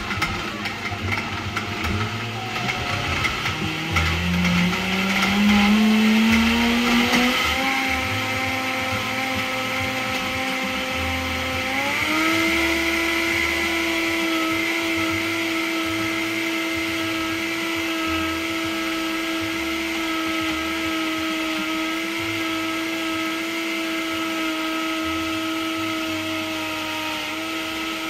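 Vitamix Pro 750 blender with a 20-ounce personal cup blending a smoothie. The motor whine climbs in pitch over the first several seconds as it speeds up, levels off, then jumps higher about twelve seconds in and runs steadily at high speed.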